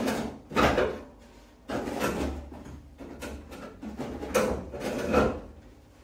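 Steel front fender scraping and knocking against the car's body as it is shifted and held in place: several short scrapes and bumps, fading near the end.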